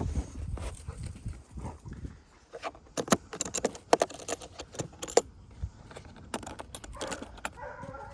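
Clicks, clacks and rattling of a plastic carrying case being opened and its contents handled, a run of irregular sharp knocks.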